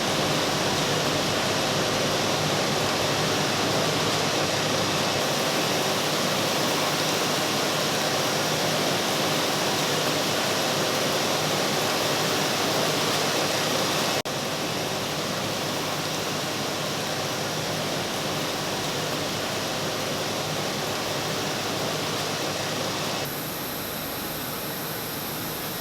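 Button-machining machines running in a factory: a loud, steady noise like rushing air or water, with faint steady hum tones. It changes abruptly in level twice, about 14 seconds in and about 23 seconds in.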